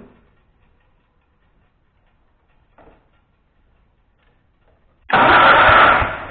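Kohler K241 single-cylinder engine turned over by the starter in a short burst of about a second, near the end, to check for spark from the new plug wire. A few faint clicks come before it.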